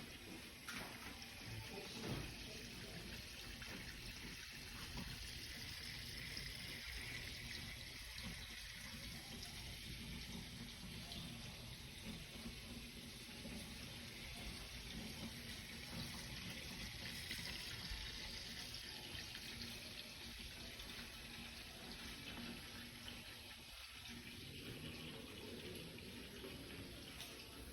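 Faint, steady sound of water running from a tap into a stainless steel kitchen sink.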